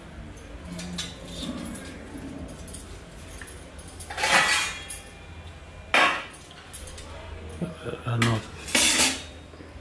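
Kitchen utensils and dishes clattering off to the side: a few separate metallic clinks and knocks, about four, six, eight and nine seconds in, over a steady low hum.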